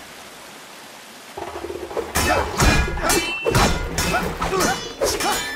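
Film fight-scene soundtrack: a hushed ambience, then from about a second and a half in, score music comes up with a series of hard hits from weapon and shield blows, and shouting voices.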